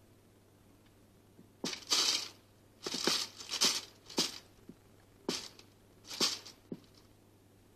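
Plastic sheet crinkling and rustling in about six short bursts as a cat paws and scrabbles at it, ending with a sharp click.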